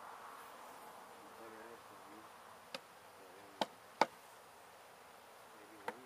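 Honey bees buzzing around a hive being cut out of a house wall, a steady hum with individual bees' pitch wavering up and down as they fly close. Four sharp knocks come in the second half, the loudest about four seconds in.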